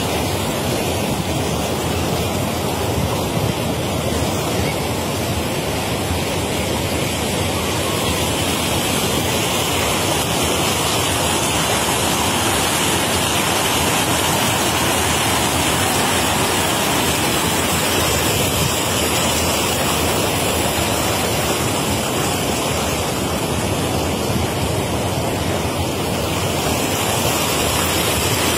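Steady rush of river water pouring over shallow white-water rapids, an even roar with no breaks.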